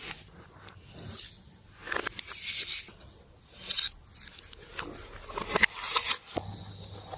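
Slime being worked by hand: bursts of sticky crackling and squishing with sharp little clicks, several times. A steady low hum with a faint high whine starts abruptly near the end.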